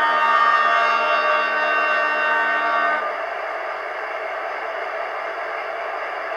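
Sound decoder in a Roco H0 model of a class 118 diesel locomotive sounding its horn, a steady chord that cuts off about three seconds in, over the locomotive's diesel engine sound, which runs on steadily alone.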